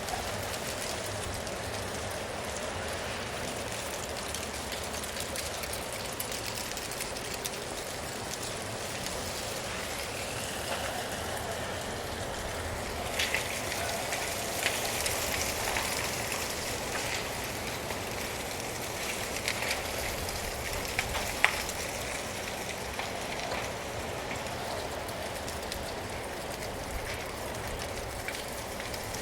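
Wind blowing steadily with dry leaves rustling. The leaves crackle more densely from about halfway through, with one sharp snap near the end of that stretch.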